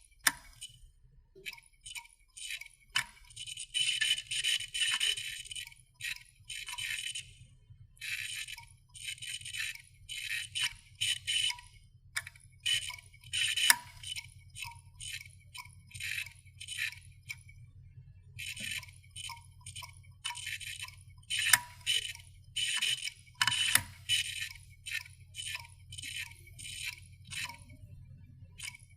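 Failing computer hard disk drive clicking, in irregular bursts of rapid ticking and chattering over a steady low hum: the clicking of a drive at the end of its life.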